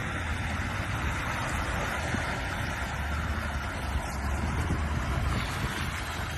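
An off-road 4x4's engine running steadily, with a low rumble under a wash of noise like wind on the microphone.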